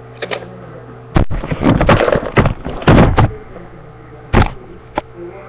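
A run of knocks and bumps lasting about two seconds, then two more single knocks: handling noise as the webcam and toys are moved about on a wooden desk.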